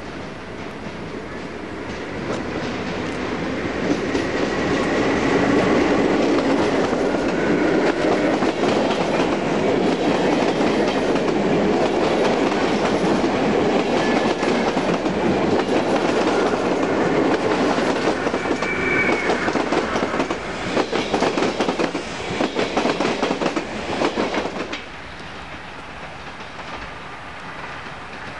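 Passenger train running past along a station platform: a rumble of wheels on rail that builds over the first few seconds and holds loud and steady. Toward the end it turns into a rapid clickety-clack of wheels crossing rail joints as the last coaches pass, then drops off abruptly to a lower, distant train noise.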